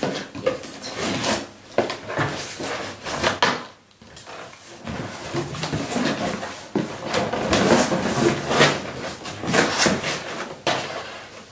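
Cardboard shipping box being opened and unpacked by hand: flaps scraping and knocking, and the contents rustling in irregular bursts, with a brief lull about four seconds in.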